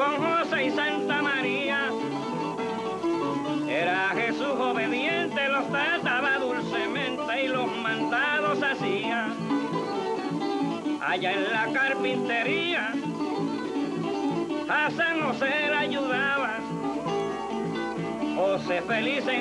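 Acoustic folk music on plucked strings, guitar prominent, with a wavering melody line that comes and goes in phrases.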